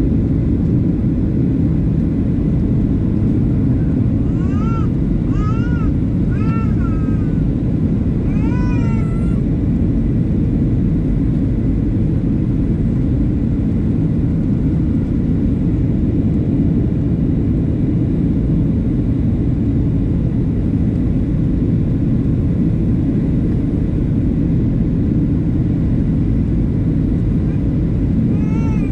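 Steady low rumble of airflow and engines inside a Boeing 737-700 airliner cabin in flight. About four seconds in come five short, high cries that each rise and fall, and another comes near the end.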